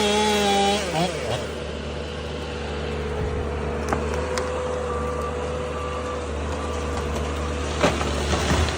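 Heavy machinery engine running steadily with a constant whine, and three short high beeps about halfway through.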